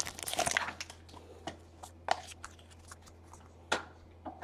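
Foil trading-card pack wrapper crinkling for the first second, then a few faint clicks and taps as a stack of cards is handled.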